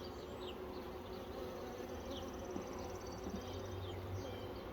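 Honeybees buzzing around an open hive, a steady hum: the colony is stirred up and defensive during the frame inspection.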